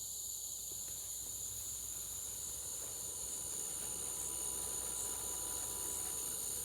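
Night insects, crickets, singing in a steady, high-pitched chorus.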